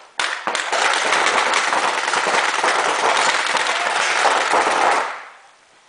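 Several reball markers firing in rapid, continuous volleys, a dense clatter of shots that dies away about five seconds in.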